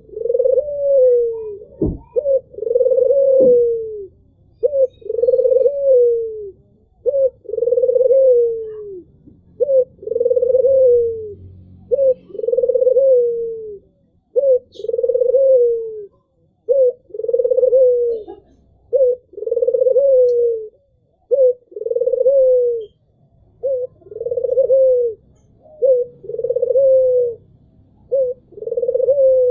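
White (albino) ringneck dove, the puter, cooing over and over: each coo is a short note followed by a longer note that falls away at its end, repeating about every two seconds. A single sharp knock sounds about two seconds in.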